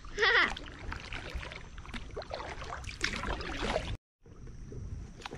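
Kayak paddling on slow river water: paddle blades dipping and dripping, with a short high child's call at the very start. About four seconds in the sound drops out for a moment, then returns as a steady water hiss with a faint high whine.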